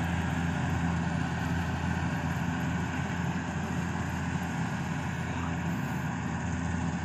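Yanmar combine harvester running steadily, its engine giving a constant low hum under a wide mechanical rush.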